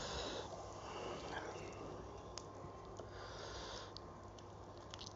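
A person sniffling through the nose several times while eating, each sniff a short breathy hiss, with a couple of faint clicks of fingers against the plate. The sniffling is a runny nose from eating hot green chillies.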